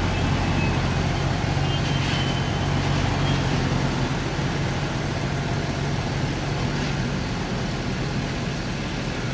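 Mercedes-Benz coach's diesel engine running as the bus pulls away, its low hum fading about halfway through, over steady background noise.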